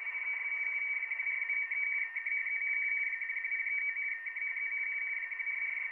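Radioteletype (RTTY) data signal heard through an Icom 7300 shortwave receiver in USB: a fast, even warble as the transmission flips between two close tones near 2 kHz, over steady band hiss.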